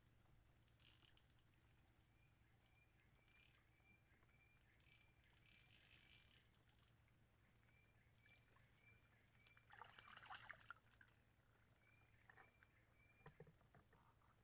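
Near silence: faint background ambience with a steady high whine and a quick, repeating faint chirp, and a brief faint rattle about ten seconds in.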